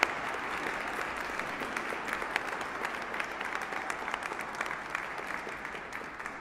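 Audience applauding: dense, even clapping that begins to fade near the end.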